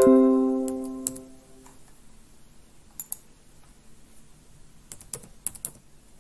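Desktop notification chime: several tones struck together at the start, dying away over about a second and a half. After it come a few scattered sharp clicks.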